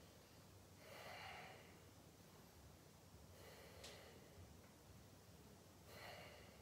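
Faint breathing of a man holding a plank: three soft breaths, about two and a half seconds apart.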